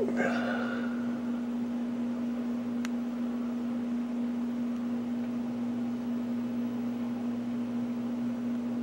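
Steady low hum over a faint hiss: room tone. A brief faint sound right at the start and a single sharp tick about three seconds in.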